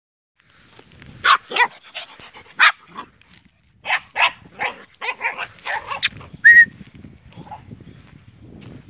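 A dog barking in short, sharp barks, about a dozen in two quick runs, with a brief high-pitched note at about six and a half seconds, then low rustling.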